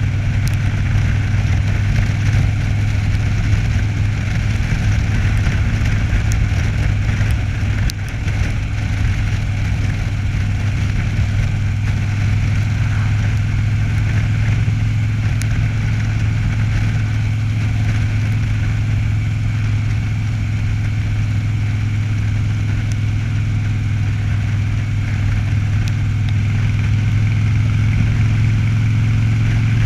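Cruiser motorcycle engine running steadily at highway cruising speed, heard from the rider's seat, with a steady haze of wind and road noise. The level dips briefly about eight seconds in.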